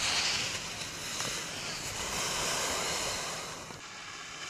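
Steady rushing noise of skiing downhill on a groomed slope: wind buffeting the microphone and skis hissing over the snow.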